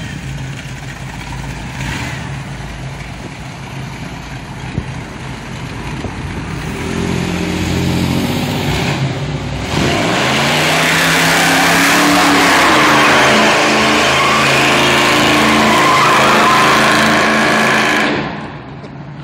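406 small-block Chevy V8 in a box Chevy Caprice revving hard while the rear tires spin and squeal through donuts on a newly fitted posi rear end. The revs and tire noise climb about halfway in, stay loud, then drop off sharply near the end.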